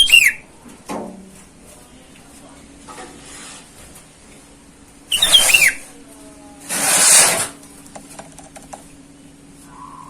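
Sooty-headed bulbul (kutilang) calling in short bursts: quick downward whistles at the start, then two loud harsh calls about five and seven seconds in. A faint low steady hum runs underneath.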